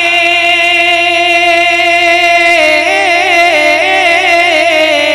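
A man singing an Urdu naat into a microphone. He holds one long note for about two and a half seconds, then moves the note up and down in quick ornamented turns.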